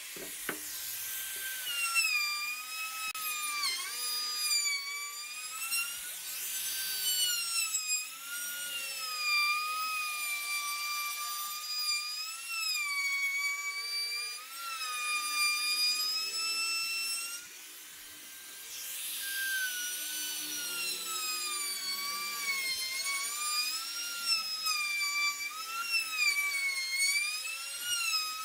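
Handheld trim router running as its bit cuts along the curved edge of a pine board, a high whine whose pitch dips and wavers as the load changes. The cutting noise swells at times and drops briefly just past the middle.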